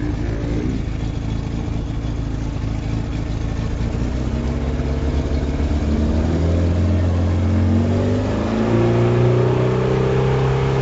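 Mercury 40 hp two-stroke outboard motor speeding up under throttle: its pitch climbs from about four seconds in and steps higher again near the end as the boat gets underway, with water rushing past the hull.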